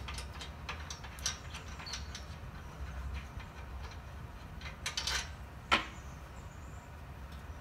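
Hand tools clinking on metal as a muffler's flange bolts are worked on an engine run stand: a scatter of sharp clicks and knocks, the loudest about two-thirds of the way in, over a low steady hum.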